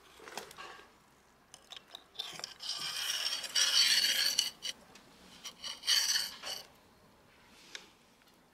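Scraping and rubbing as the plastic water-pump housing with its rubber impeller is slid down the steel driveshaft of a Yamaha 25 hp outboard's lower unit: one long scrape starting about two seconds in, and a shorter one about six seconds in, with small knocks between.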